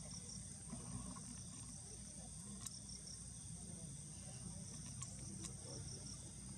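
Faint, steady, high-pitched insect chirring over a low rumble, with a few faint clicks.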